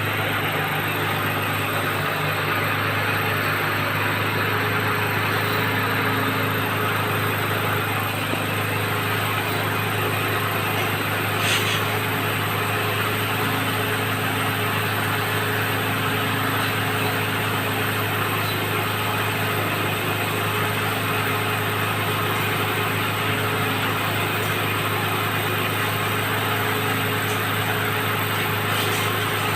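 Engine of a water-well drilling rig running steadily at a constant speed, with one sharp click about eleven seconds in.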